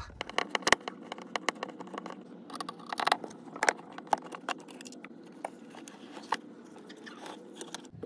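Screwdriver working out the mounting screws of a wall-mounted Zamp solar charge controller, and the unit being pried loose: irregular sharp clicks and scrapes, thickest in the first half and thinning out toward the end.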